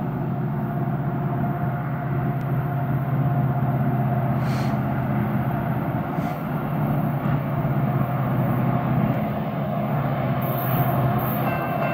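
Diesel locomotives of an approaching Union Pacific stack train, heard before they come into view as a steady low engine rumble. About ten seconds in, a grade-crossing signal bell starts ringing as the crossing activates.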